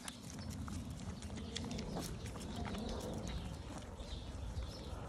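A litter of Miniature Schnauzer puppies nursing from their mother, with many quick, irregular sucking and smacking clicks.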